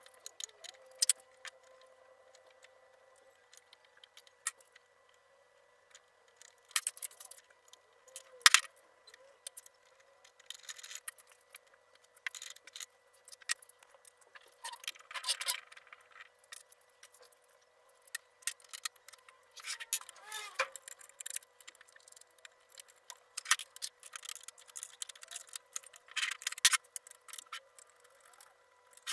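Irregular metal clicks, clinks and short scrapes of steel parts being handled and fitted: the threaded vise rod, nuts and bolts of a homemade angle grinder stand. One sharp knock about a third of the way in is the loudest sound.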